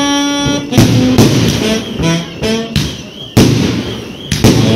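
Fireworks shells bursting in several sharp bangs over a loud melody played on brass or saxophone.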